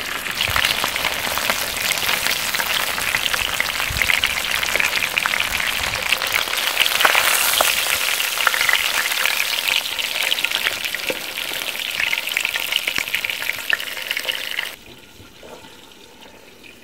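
Flour-dusted bass and bluegill frying in a pan of hot oil: a steady, dense crackling sizzle that cuts off abruptly near the end.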